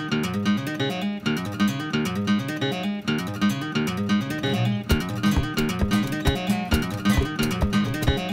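Acoustic guitar playing a fast, busy intro of picked and strummed notes. About five seconds in, a steady low thump joins on the beat.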